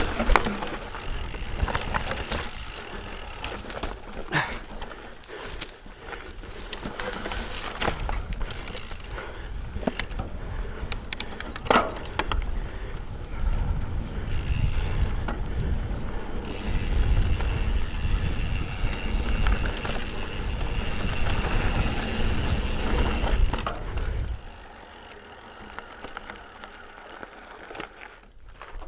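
Santa Cruz Hightower mountain bike being ridden along a rough trail: tyre noise and wind rumble on the microphone, with scattered clicks and rattles from the bike. Near the end the rumble drops away and a faint, fast ticking is left.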